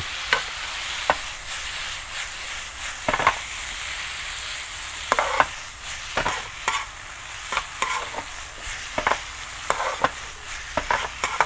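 Bamboo shoot strips sizzling in a hot wok as they are stir-fried, with a steady hiss. A metal spatula scrapes and clacks against the wok at irregular intervals.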